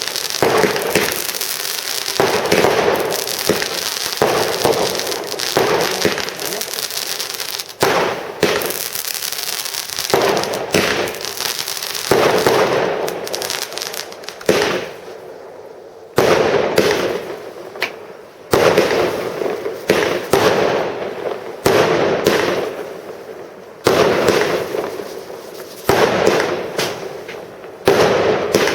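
Consumer firework batteries going off: a dense, nearly continuous run of bangs and crackle, which about halfway through thins into separate loud shots every second or two, each dying away.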